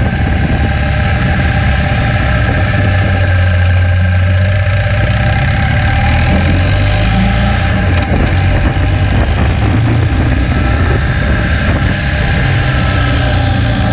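Motorcycle engine running steadily on the road, with only small changes in pitch.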